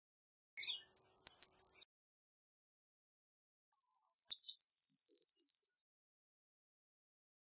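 Eurasian blue tit singing two short high-pitched phrases. Each is a few thin notes that step down into a rapid trill, and the second phrase is longer.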